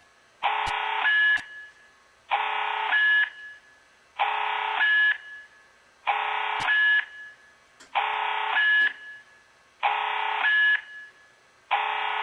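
Fire alarm ceiling speaker (Edwards GCF-S7VM speaker-strobe) sounding the evacuation alarm tone of a voice-evac sequence: a buzzing tone about a second long that gets louder at its end, repeating about every two seconds.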